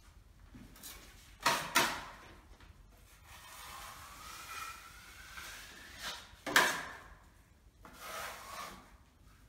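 Filling knife scraping filler across a painted wall panel, with stretches of dragging and a faint rising squeal as the blade is drawn. Sharp clacks of the knife come twice in quick succession about one and a half seconds in, and once more about six and a half seconds in.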